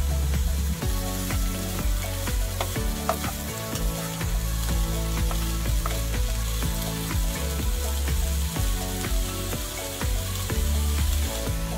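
Diced zucchini, bell pepper, grated carrot and onion sizzling as they fry in vegetable oil in a pan, with a spatula stirring them and clicking and scraping against the pan. Background music plays underneath.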